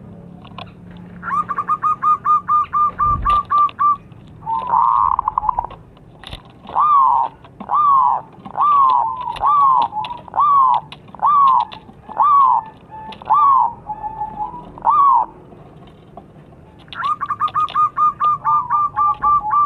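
Zebra dove (perkutut) singing: a quick run of short staccato notes about a second in, then a slower series of about ten downward-sliding coos a little under a second apart, and another quick run near the end.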